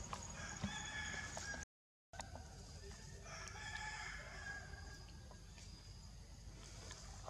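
A rooster crowing in the distance, two long drawn-out calls. The sound cuts out completely for a moment about two seconds in.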